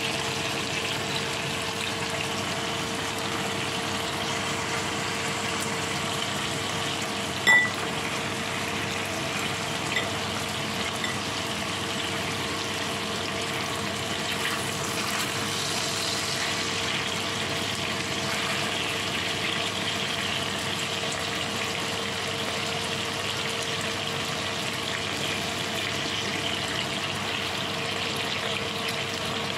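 Chicken thighs and melting butter sizzling steadily in a frying pan, with a steady hum underneath. A single sharp click about seven seconds in, and a fainter one a few seconds later.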